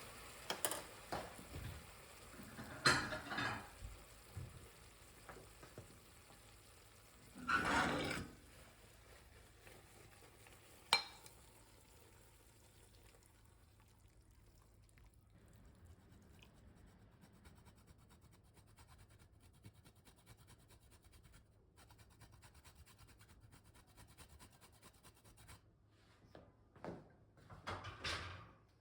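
Kitchen cooking sounds: a utensil stirring and scraping in a pan and a few clinks of dishes, the longest scrape about a second long, then a sharp click and a long quiet stretch before a few more small clatters near the end.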